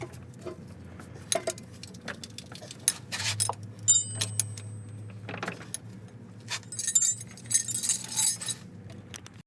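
Metal tools and parts clinking and clattering as they are handled, with one short metallic ring about four seconds in and a busier rattle near the end.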